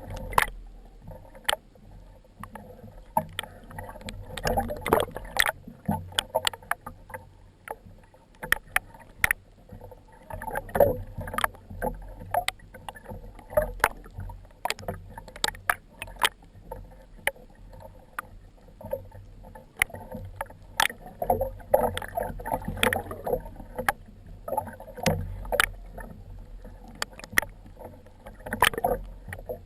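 Water sloshing and moving around an action camera in its waterproof housing, with many irregular clicks and knocks.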